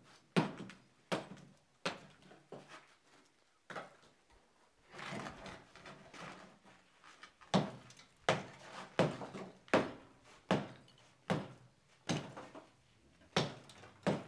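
Repeated sharp blows breaking a sodium-silicate-bonded sand mould away from a freshly cast aluminium motorcycle clutch cover, with sand crumbling. The knocks are scattered at first and then come about once every three-quarters of a second in the second half.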